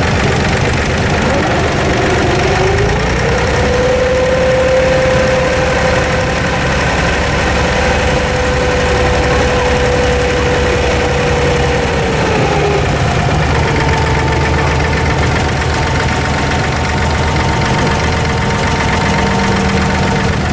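Diesel engine of an abra water taxi running steadily. A whine rises about two seconds in, holds, and falls away about twelve seconds in, then a slightly lower whine holds through the rest.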